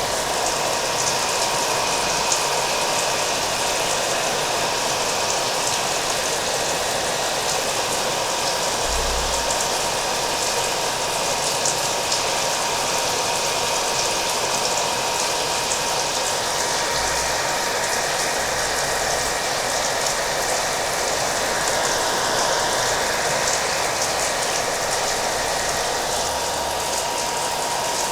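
A hair dryer running steadily with a constant whine, mixed with the patter of falling rain.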